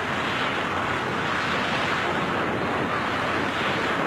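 Steady rushing wind noise of a skydiver's freefall, air blasting over the camera microphone.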